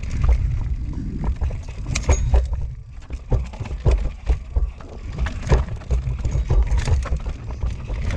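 Full-suspension mountain bike riding fast down a rocky dirt trail: tyres rumbling over dirt and stones with a constant low rumble, and many sharp clattering knocks as the bike hits rocks and roots, easing briefly about three seconds in.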